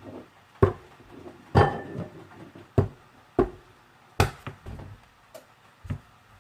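A whole egg knocked against a ceramic bowl again and again: about eight sharp knocks at uneven intervals, hard enough that the egg ends up smashed and splattered.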